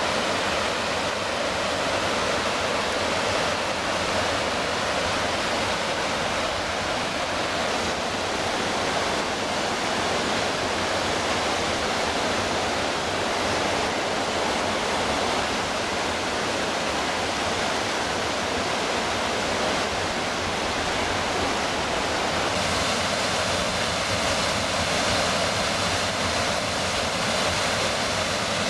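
Fast water of a rocky Highland river, the River Orchy, rushing steadily over white-water rapids and small falls. The rushing changes slightly in tone about two-thirds of the way in.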